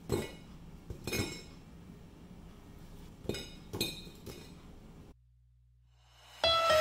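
French fries dropped onto a ceramic plate: about five light clinks and taps over the first four and a half seconds. Music starts near the end.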